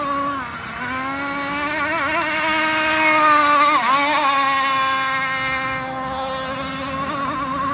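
Small two-stroke gas engine of a radio-controlled rigger hydroplane running at high revs with a steady buzzing pitch. The pitch dips briefly about half a second in, then climbs and gets louder to a peak around the middle, and eases back down again.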